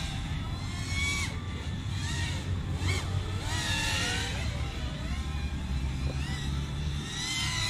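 FPV quadcopter's brushless motors (iFlight Xing-E 2207) whining, their pitch rising and falling over and over as the throttle is worked in flight.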